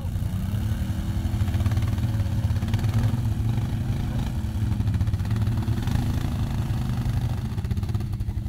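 Several ATV engines running at low revs, the nearest one's note rising and falling as it is throttled up a muddy slope.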